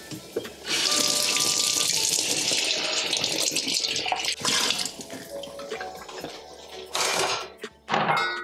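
Running water, a steady stream for about three seconds, then a few shorter rushes near the end, as a kitchen station is rinsed and reset.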